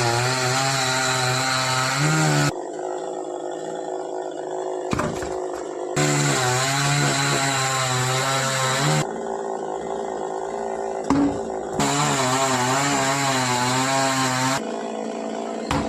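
Two-stroke chainsaw cutting into a coconut palm. It is revved up in three loud bursts of about three seconds each and drops back to a lower, quieter running between them.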